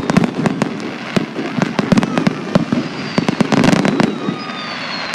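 Fireworks exploding in a rapid barrage: many sharp bangs a second over continuous crackling, with faint whistling tones gliding slightly down in the second half.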